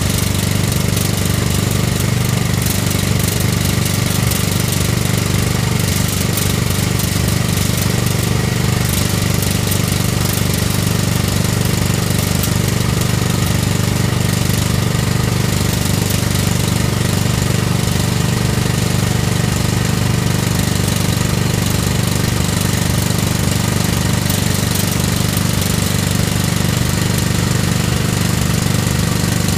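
Excavator-mounted Word hydraulic rock drill hammering steadily and rapidly as it drills into the ground, over the excavator's engine running at a constant speed.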